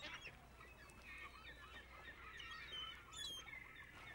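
A faint chorus of bird calls: many short, overlapping chirps and whistles, with a sharp high whistle about three seconds in.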